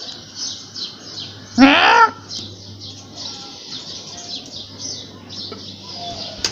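Small birds chirping rapidly and without pause, with one loud half-second cry that rises in pitch about one and a half seconds in.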